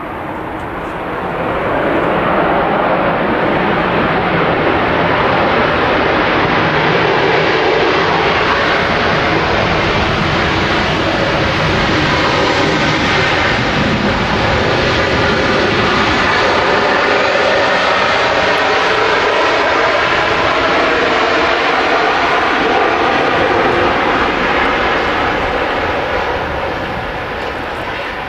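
Jet engines of a landing Airbus A380, loud and steady, with slowly sliding tones in the noise; the sound swells over the first couple of seconds and eases off near the end.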